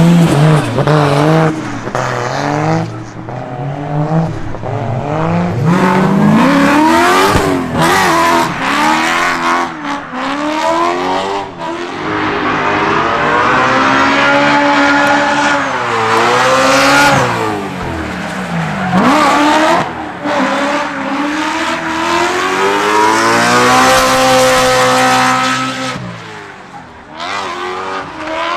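BMW drift car's E92 M3 4.0-litre V8 revving hard, its pitch climbing and dropping again and again as the car drifts, with a quieter spell near the end.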